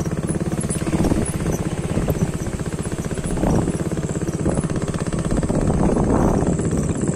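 Small motorcycle engine running while riding, a steady rapid pulsing, with louder noisy swells every second or so.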